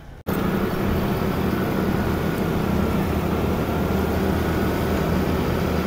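Motorbike engine running steadily while riding, over a steady rushing noise; it starts abruptly a moment in.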